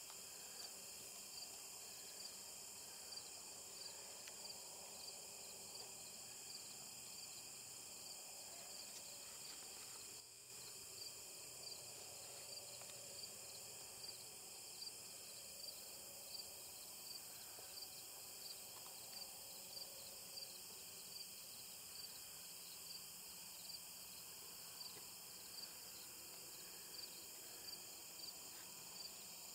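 Faint chorus of insects: a steady high-pitched trill with a cricket-like chirp repeating evenly, a little more than once a second.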